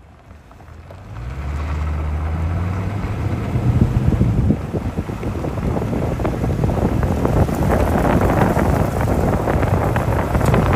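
Strong gusty wind buffeting the microphone, rising sharply about a second in and staying loud, with a low rumble through the first few seconds.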